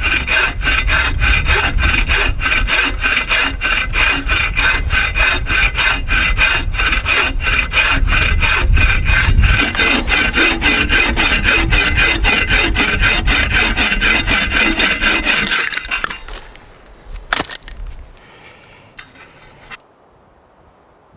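Hand saw cutting through a thick hardwood log in steady back-and-forth strokes, about two to three a second. The sawing stops about 16 seconds in, followed by a single sharp crack and some brief rustling.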